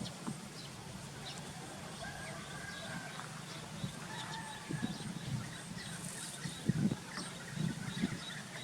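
Faint short animal calls, with scattered low knocks and rustling.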